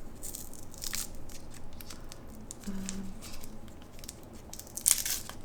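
Small paint-pan wrapper being handled and torn open by hand: crinkly rustling and small clicks, with the loudest rustle near the end.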